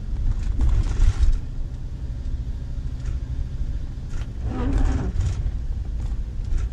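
Camping car driving on a wet road, heard from inside the cab: a steady low engine and road drone, with a brief louder hiss about a second in.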